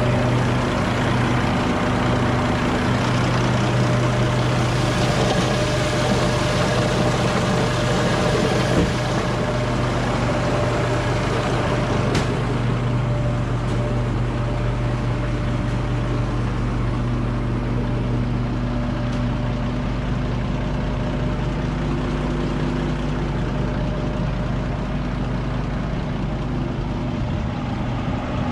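John Deere 7710 tractor's diesel engine idling steadily.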